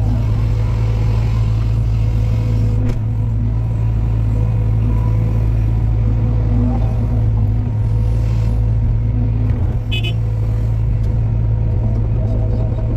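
Diesel engine of heavy construction machinery running steadily at a constant speed, a deep, even rumble with a brief high-pitched blip about ten seconds in.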